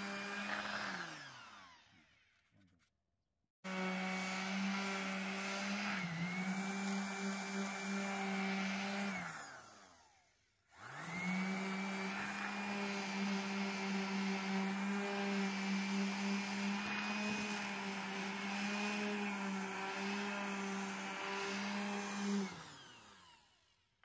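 Electric finishing sander running on a louvered wooden cabinet door, a steady motor hum. It winds down about a second in, starts again sharply a few seconds later, winds down again around the middle, then starts once more and winds down near the end.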